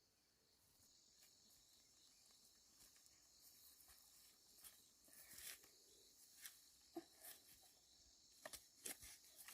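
Near silence with a faint, steady high-pitched chirring of insects, such as crickets, and a few faint ticks and rustles that grow more frequent near the end.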